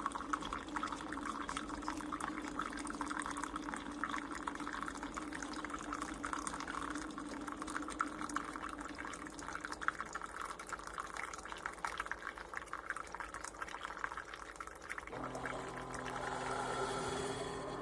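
Ninja Pods & Grounds single-serve coffee maker brewing, with coffee streaming and dripping into the cup. About fifteen seconds in, a steady machine hum joins the pouring sound.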